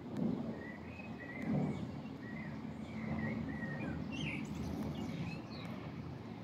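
Small birds chirping and warbling in short phrases over a steady low rumble.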